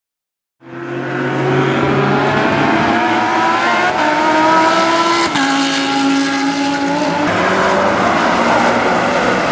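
Racing car engine at speed on a circuit, starting about half a second in, its pitch climbing with sudden drops about four and five seconds in.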